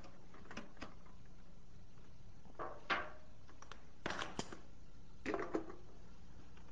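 Thin metal can clinking and knocking as it is lifted off its burner stand and its screw cap is closed with pliers, sealing the steam-filled can. Scattered short taps over a faint steady hum, the loudest about three seconds in and small clusters near four and five and a half seconds.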